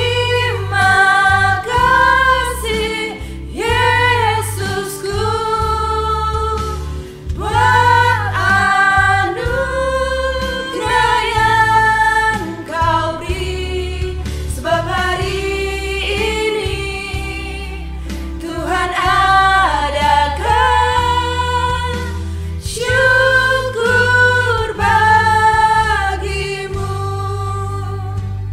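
Female voices singing an Indonesian Christian worship song of thanks over an instrumental backing with a steady low bass.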